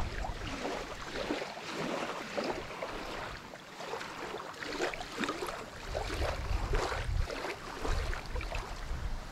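Small waves lapping and splashing against a gravel lakeshore, with gusts of wind buffeting the microphone about six seconds in and again near the end.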